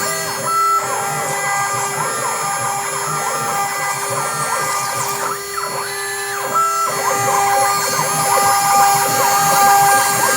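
Homemade CNC router machining a part: a steady spindle whine under stepper motors whirring, their pitch ramping up and down over and over as the axes speed up and slow down.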